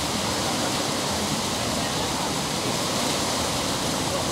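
Water rushing steadily out under a canal sluice gate into the channel below, a constant even roar.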